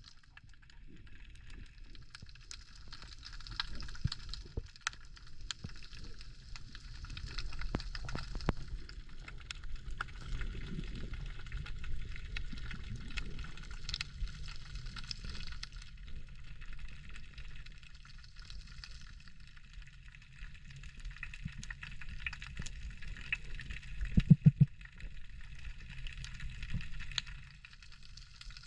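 Underwater ambience: a steady low rumble of water with constant fine crackling and clicking, and a quick run of four low thumps about 24 seconds in.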